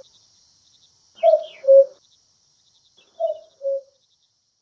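Common cuckoo calling its two-note "cuck-oo", the second note lower, twice about two seconds apart, the second call fainter. A faint steady high hiss lies beneath.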